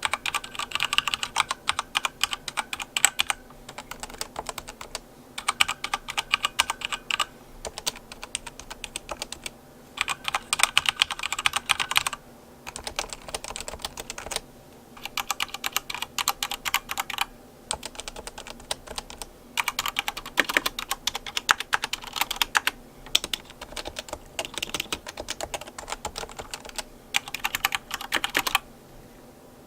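Computer keyboard being typed on quickly in runs of one to three seconds, with short pauses between.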